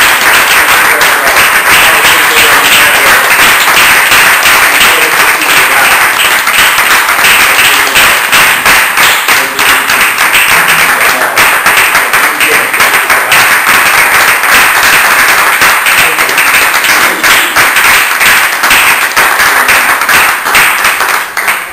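Audience applauding, many hands clapping at once in a steady dense patter; it cuts off suddenly at the end.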